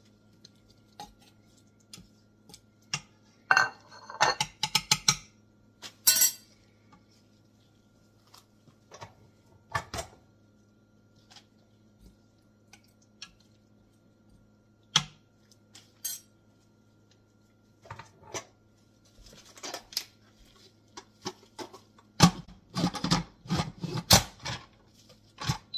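Metal spoon clinking and scraping against the stainless-steel inner pot of an electric pressure cooker as meat and greens are moved around, in scattered knocks. Near the end comes a busier run of knocks and clatter as the cooker's lid is put on.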